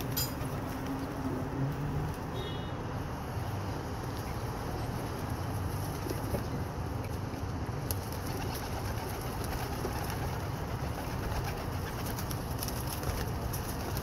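Feral rock pigeons cooing low as they crowd together feeding, with a few short clicks over a steady background noise.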